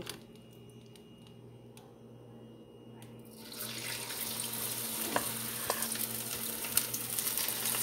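Hot cooking oil sizzling as marinated chicken pieces go into the frying pan; the sizzle comes in after about three seconds of quiet and then holds steady and crackling. A couple of light clicks sound midway.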